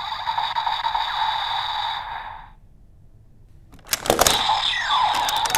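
DX Revice Driver toy belt playing its electronic standby loop, which cuts off about halfway through. After a short lull, a loud plastic clack as the Volcano Vistamp in the driver is pushed by hand, and the belt's electronic sound effects start up with gliding tones.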